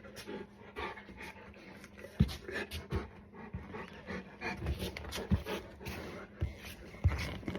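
A Black Russian Terrier panting, with several sharp knocks and thumps, the loudest about two, five and seven seconds in.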